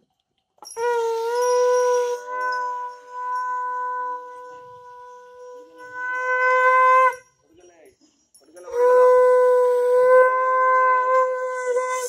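A conch shell is blown in two long, steady blasts. The second blast starts about a second and a half after the first ends.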